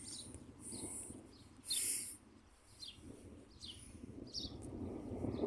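A small bird chirping over and over, short falling chirps about one or two a second. About two seconds in there is a brief, louder hissing burst.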